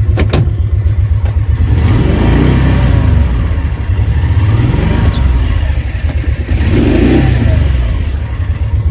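Mule utility vehicle's engine running hard and revving up and down twice, in differential lock, as it tries to drive out of deep snow and ice: it is stuck, bottomed out.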